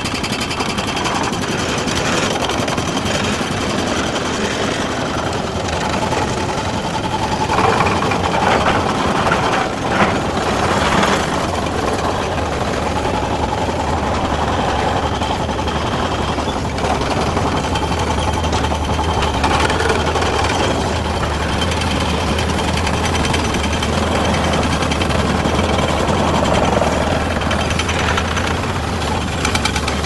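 Large Caterpillar crawler bulldozer working under load: its heavy diesel engine runs with a fast, steady rattling clatter, and a deep steady drone joins about halfway through.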